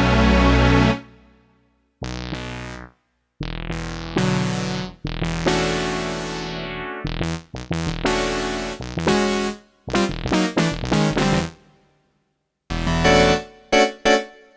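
Alesis Ion virtual-analogue synthesizer playing a run of short demo phrases of keyboard patches: piano and electric-piano-like chords and notes, each phrase ending in a decay with brief silences between them.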